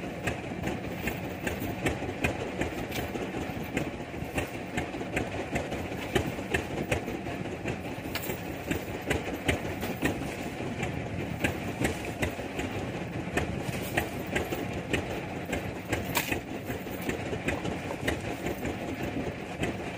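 A small wooden fishing boat's engine running steadily. Frequent sharp clinks ride over it as a trawl rope fitted with metal rings is hauled aboard and piled on the deck.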